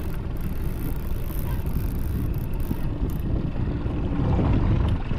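Boat engine running steadily at low speed with a low rumble.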